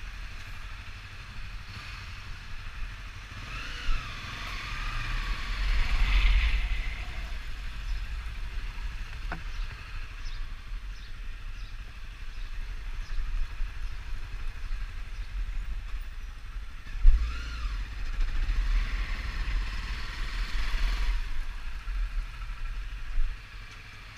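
Honda 250 motorcycle riding along, its engine rising and falling in pitch twice as it speeds up and eases off, over a steady low rumble.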